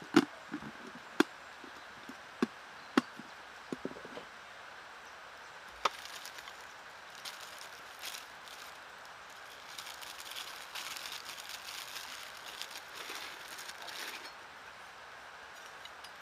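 Sharp cracks of dry wood, about six over the first six seconds, then several seconds of dense rustling and crackling, as of dry branches and sticks being handled and broken.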